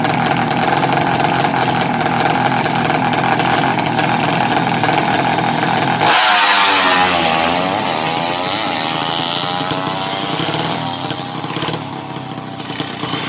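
Two drag-race motorcycles' engines revving on the start line, then about six seconds in they launch hard, the engine pitch climbing and falling through the gears as the sound fades away down the strip.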